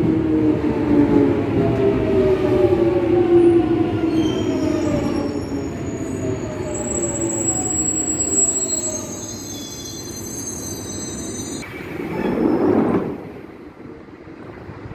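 London Underground 1996 Stock Jubilee line train braking into the platform: its traction motor whine falls steadily in pitch as it slows, with a high squeal from the brakes and wheels in the middle. Near the end a short rush of noise comes as the train stops, leaving a low steady hum.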